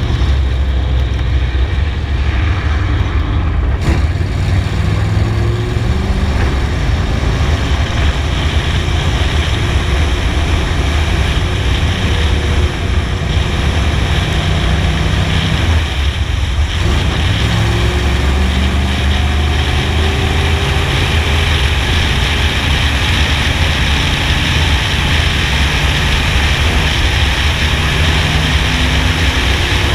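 V8 engine of a NASCAR stock car running at speed, heard from a roof-mounted action camera and largely masked by heavy wind rumble. The engine note drops briefly about halfway through as the driver lifts for the corner, then climbs again as he gets back on the gas.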